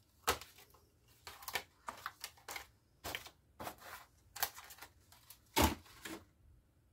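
Irregular series of sharp clicks and knocks as steel shotgun choke tubes are handled and set into their cardboard box, with one louder knock near the end.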